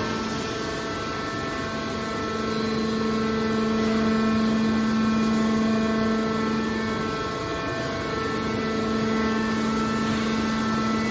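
Steady hum of a scrap metal baler's hydraulic power unit running: one held tone with overtones over a noisy mechanical bed, briefly dropping out about seven and a half seconds in.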